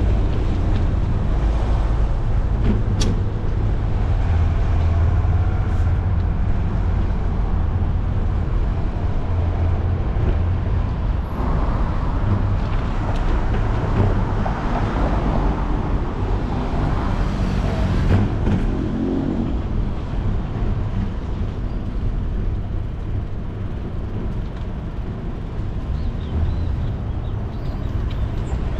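Wind rumbling on the microphone of a moving bicycle, over the sound of city street traffic; a vehicle passes, louder, about halfway through.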